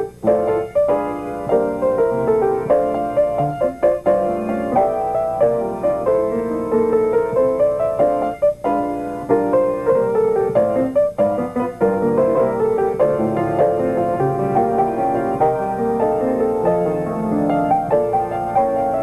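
Piano playing an instrumental tune with chords and a running melody.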